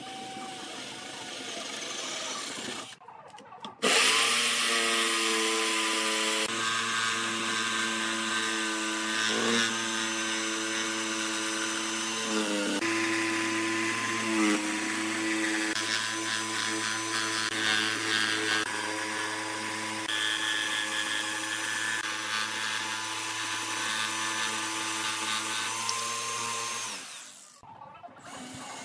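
A cordless drill runs briefly as it bores a starter hole in a wooden panel. Then, about four seconds in, an electric jigsaw starts and runs steadily for over twenty seconds, cutting a circular hole through the wood, its motor dipping in pitch a few times under load before it stops near the end.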